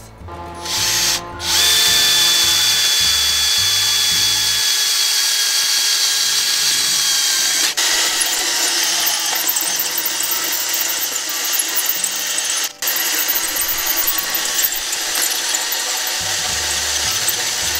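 Cordless 10.8 V drill driver (HiKOKI DV12DD) running steadily under load as a 32 mm hole saw cuts through steel angle, holding a constant speed, with a few brief breaks.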